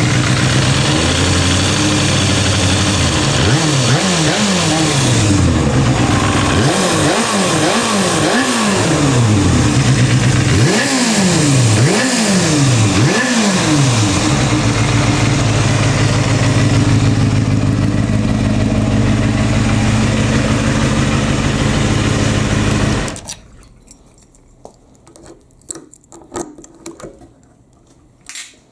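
Kawasaki Balius 250's inline-four engine breathing through an aftermarket OVER silencer: idling, then blipped through a quick series of revs, then idling steadily again. About four-fifths of the way in it is switched off and stops abruptly, leaving a few faint clicks.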